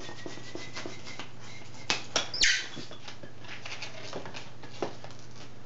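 Partly inflated 160 latex twisting balloon handled between the fingers: faint rubbing and small clicks, then a single short squeak falling in pitch a couple of seconds in.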